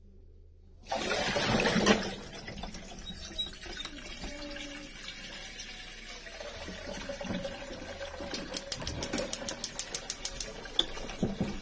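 Kitchen tap water running into the sink while a cutting board is washed. It starts with a loud gush about a second in, then settles to a steadier flow, with a fast rhythmic scratching for a couple of seconds near the end.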